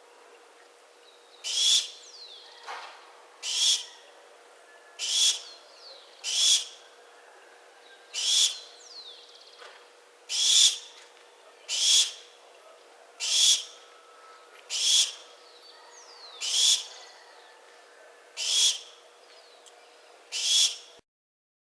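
Barn owl calling: about a dozen short, harsh, hissing screeches, roughly one every one and a half to two seconds. The calls stop shortly before the end.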